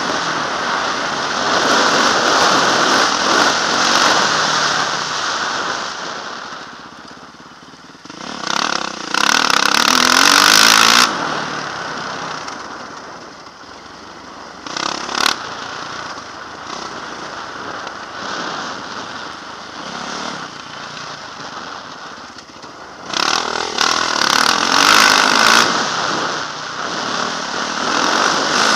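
Yamaha dirt bike engine being ridden hard, heard from a helmet-mounted camera with a rushing noise over it. It revs loudly, eases off, surges again about a third of the way in, runs quieter through the middle with a single sharp knock, and comes back loud for the last few seconds.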